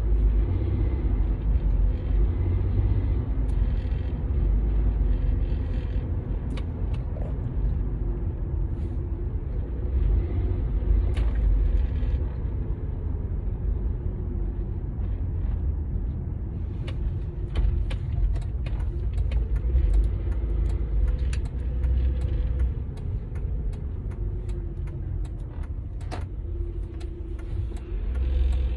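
Ford Edge SUV being driven: a steady low engine and road rumble, with the engine note drifting up and down. Scattered light clicks come in over the second half.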